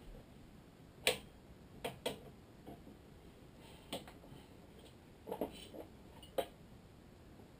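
Sharp clicks and light taps from hands handling a racket stringing machine and its tools, about half a dozen spread unevenly, the loudest about a second in and near the end as the machine's turntable is swung round.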